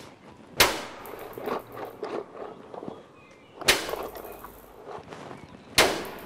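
Three loud clattering bangs, about 2 to 3 seconds apart, each ringing briefly, with lighter knocks and clatter between them.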